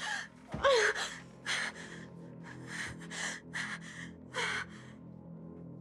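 A frightened woman's rapid, shaky breathing: short gasping breaths about twice a second, with a brief voiced whimper about a second in, stopping about five seconds in. A faint low music drone lies underneath.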